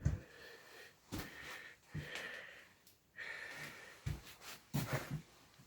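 A person's breathing close to the microphone, a series of soft breaths each lasting under a second, with a few short dull knocks near the end.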